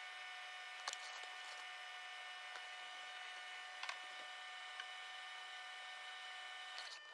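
Steady electrical hum with several high whining tones over a soft hiss. There are a few faint ticks, about a second in and again around four and five seconds, and the lowest tone cuts off near the end.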